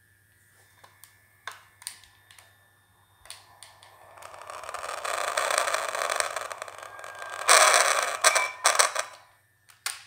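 Deluxe Talkboy cassette recorder: a few button clicks, then a hissing, crackling noise from its speaker that builds up and is loudest about eight seconds in. The owner takes the speaker to be failing and in need of repair.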